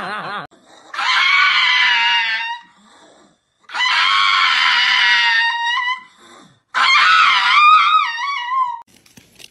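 A pug howling with its head raised: three long, high howls, each ending in a falling tail, the last one wavering.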